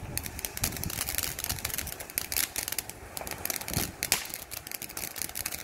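Ground fountain firework spraying sparks with a rapid, dense crackle, and one louder crack about four seconds in.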